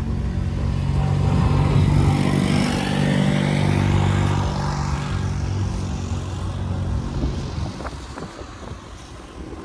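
A motor engine running steadily as it passes, loudest a couple of seconds in and fading away by about seven seconds.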